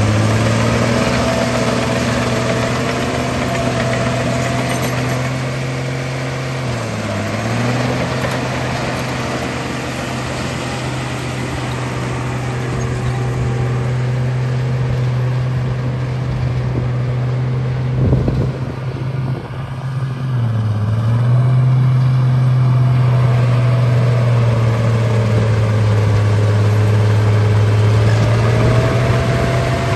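Bulldozer engine running steadily under load. Its pitch sags briefly twice, about seven seconds in and again around twenty seconds in, with a short clatter of knocks just before the second sag.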